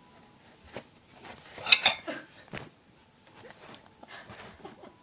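Cardboard pizza box scraping and rustling as a kitten pushes its head and paws into it. There is a burst of sharp clattering knocks at about two seconds in, the loudest moment, then softer scraping.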